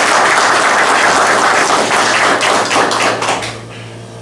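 A small group applauding with hand claps, the clapping dying away about three and a half seconds in.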